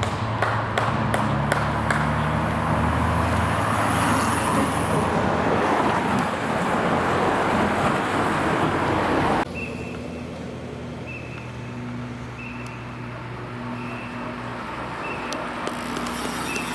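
Team follow car driving past close behind a time-trial cyclist, with engine and tyre noise swelling and fading and a few sharp clicks near the start. After a sudden cut about halfway, quieter road noise with short high beeps repeating every second or so.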